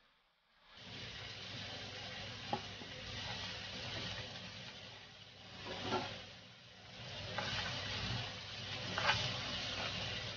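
Chopped aromatics and chillies sizzling in hot oil in a pan, stirred with a spatula, with a few short knocks of the spatula against the pan. The sizzle starts about a second in.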